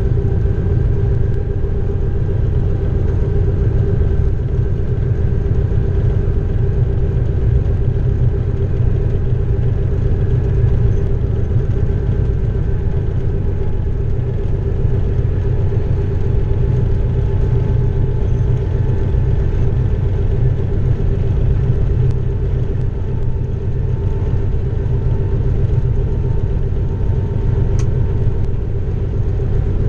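Class 232 'Ludmilla' diesel locomotive's V16 engine running steadily under way, a deep, even drone with a steady hum above it, heard from inside the driver's cab.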